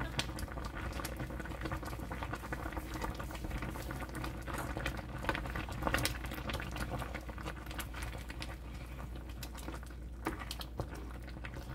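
Thick red gochujang tteokbokki sauce bubbling and popping steadily in a wide pan as rice cakes and fish cakes simmer, with a utensil stirring through it in the second half.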